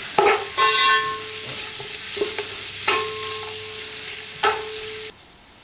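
Sliced onions and whole spices sizzling in hot ghee in a metal pot, stirred with a perforated metal ladle that knocks against the pot four times, each knock leaving a short metallic ring. The onions are being lightly fried until soft, not browned. The sound drops away sharply near the end.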